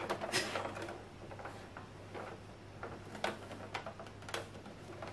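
Light, irregular clicks and taps, a few each second, from handling the pinned, rice-filled fabric at a sewing machine while it is lined up under the needle; the machine itself is not sewing.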